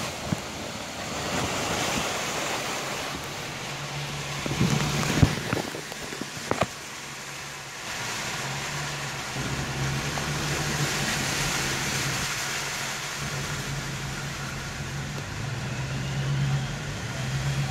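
Car engine running at low speed, heard from inside the cabin, with a steady hiss of tyres moving through water on a flooded street. A few sharp knocks come about a third of the way in.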